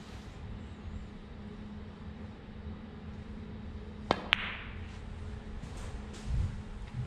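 Snooker cue tip striking the cue ball about four seconds in, then a quarter of a second later a louder, sharp click as the cue ball hits an object ball, with a short ring after it. A steady low hum runs underneath.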